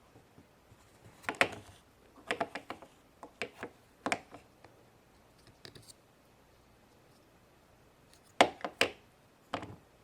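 Hard plastic Play-Doh moulds and press pieces clicking and knocking together and against a tabletop in irregular clusters of sharp taps, as golden Play-Doh coins are pressed out.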